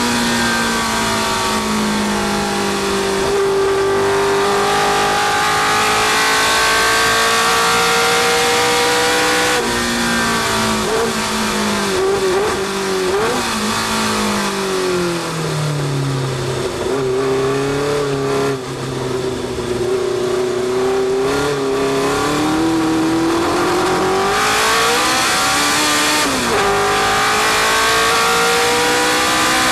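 Historic sports-racing car's engine heard from onboard, holding high revs at speed, then dropping in several steps through downshifts under braking about ten seconds in. It picks up and climbs through the revs again, with one upshift near the end, over a steady rush of wind and road noise.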